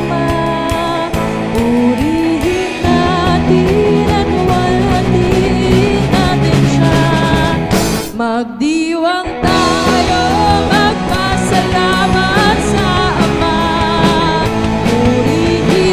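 Rock band playing live: a woman singing lead over electric guitars, bass guitar and drums. Just past the middle the band drops out for about a second while her voice carries on, then comes back in.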